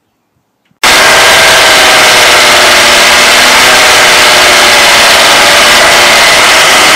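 BMW inline-six engine idling steadily, recorded very loud and close, starting abruptly just under a second in. The noise is the VANOS variable cam-timing rattle, the sign of worn VANOS piston seals and loose piston bearings.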